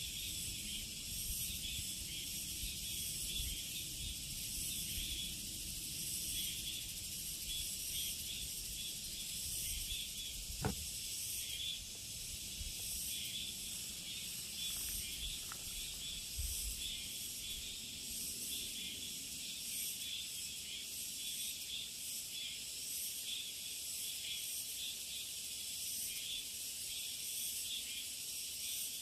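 A chorus of summer insects in a forest, a steady high-pitched buzzing that pulses gently. Low rumbling lies under it through the first half, and a single sharp click comes a little over ten seconds in.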